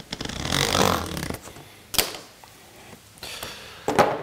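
A razor knife drawn through the back of a scored ToolGrid sheet: a rasping cut lasting about a second, then sharp clicks about two seconds in and again near the end.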